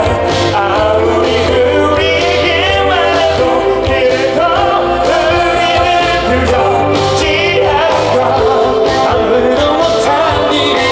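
Live pop song: male voices singing over a full backing band with a strong, steady bass line.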